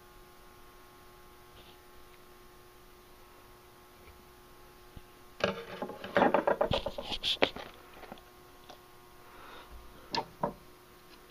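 Handling noise: about two seconds of dense clattering and knocking, then two sharp clicks near the end, over a steady electrical hum.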